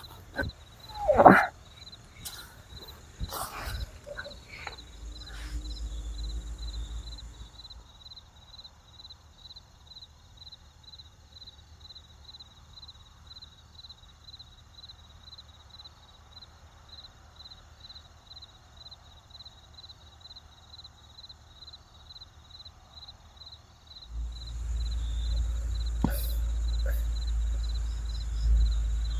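Crickets chirping in a steady, even rhythm at night, with cloth rustling as a sarong is pulled over a sleeper in a tent during the first few seconds. A louder low rumble comes in near the end.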